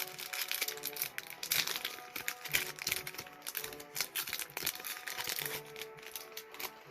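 Foil booster-pack wrapper crinkling in a run of irregular crackles as it is handled and opened, over steady background music.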